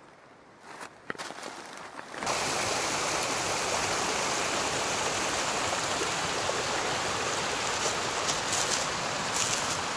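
A few faint rustles, then a small stream of running water, a steady rushing that starts suddenly about two seconds in and holds.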